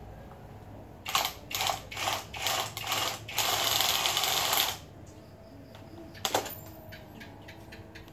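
Small cordless drill worked against the edge of a banner signboard: a series of short trigger bursts, then one longer run of about a second and a half, then a single brief burst near the end.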